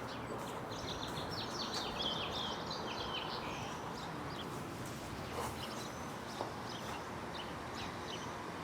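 Outdoor ambience: a steady background hiss with small birds chirping, the chirps busiest in the first few seconds.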